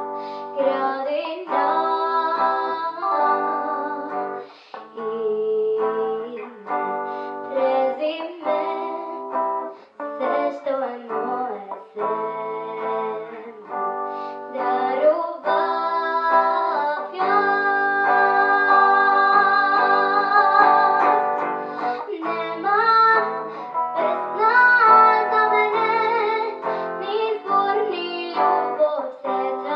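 A girl singing a slow song into a microphone, accompanied by an electric guitar.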